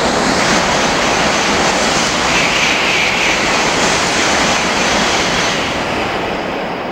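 N700-series Shinkansen passing through the station at full line speed (up to 300 km/h): a loud rushing roar of air and wheels on rail that holds steady for about five seconds while the cars sweep by, then starts to fade near the end.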